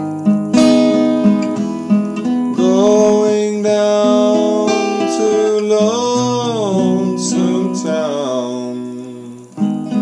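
Acoustic guitar strummed in slow chords, with a man's voice singing a long wordless line over it from about three seconds in that rises and falls and fades just before the end, when a fresh strum comes in.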